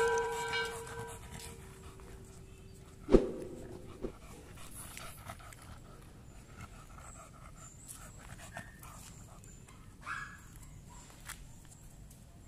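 American bully dog panting, out of breath after only a short walk, a sign of its poor stamina and excess weight. A ringing chime fades out in the first second, and a single sharp click sounds about three seconds in.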